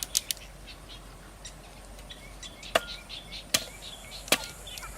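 Sharp chopping strikes of a hand tool, three blows a little under a second apart in the second half after two light clicks at the start, with faint bird chirps throughout.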